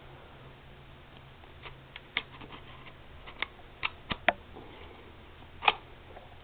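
Bolt of a Classic Army M24 spring-powered airsoft sniper rifle being worked by hand to check it functions: a string of irregular sharp clicks and clacks, the loudest one near the end.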